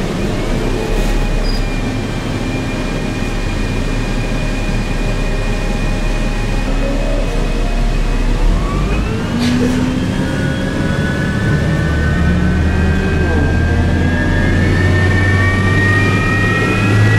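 Cummins C Gas Plus engine of a New Flyer C40LF bus, modified to run on a hydrogen and natural gas blend, heard from inside the cabin. It runs steadily at first, then from about nine seconds in the engine note and a whine both rise in pitch as the bus accelerates.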